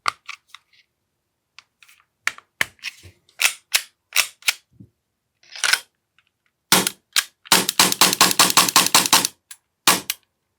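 AAP-01 gas blowback airsoft pistol being test-fired on the bench. After scattered handling clicks and knocks there are a few single shots, then a rapid string of about a dozen shots lasting just under two seconds, and two more shots near the end. The gun is being fired to check whether the upper or the lower is at fault for a misalignment that lets gas blow out.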